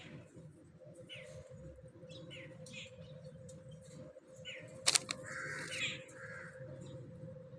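Small birds chirping, short rising chirps repeated every second or so, with one sharp click about five seconds in and a steady low hum underneath.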